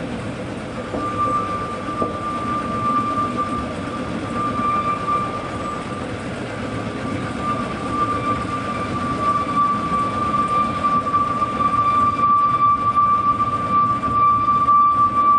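Narrow-gauge park railway train running, heard from an open wagon: a steady rumble of wheels on the rails, with a steady high whine that starts about a second in and holds, growing a little louder toward the end.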